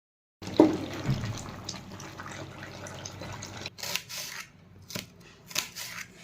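Water splashing and running, with a sharp knock about half a second in and a few short clicks and splashes later on.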